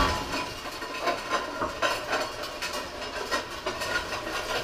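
Loose metal rattling and clanking, with irregular knocks, as an old three-window coupe body on a bare rolling chassis is rolled across a concrete garage floor.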